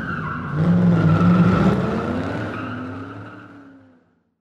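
A car engine revving, played over an outro card, louder from about half a second in and fading out about four seconds in.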